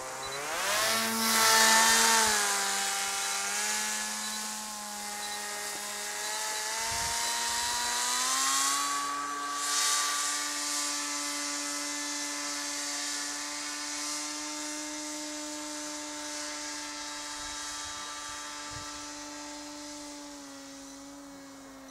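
Electric motor and propeller of a radio-controlled paramotor buzzing: the pitch drops sharply as it passes close at the start, steps up about eight seconds in, then holds steady while the sound slowly fades as it climbs away.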